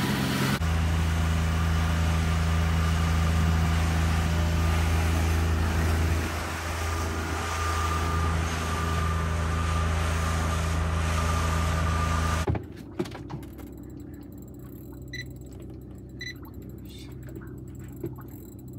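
A fishing boat's engine running steadily at cruising speed, a low even hum with wind and water rushing over it, which cuts off suddenly about twelve seconds in. After that it is much quieter, with a few faint clicks and knocks.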